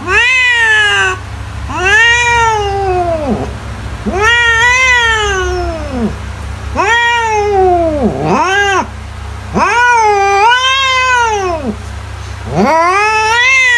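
A domestic cat meowing over and over: about seven long, drawn-out meows, each rising then falling in pitch, roughly one every two seconds, over a steady low hum.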